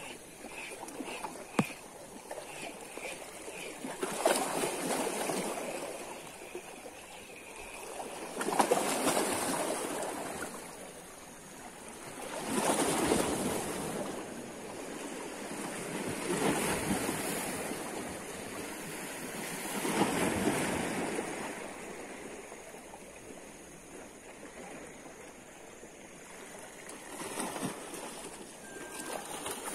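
Waves washing against a rock breakwater, the rush swelling and fading about every four seconds. Through the first several seconds there is a faint regular ticking, about two ticks a second.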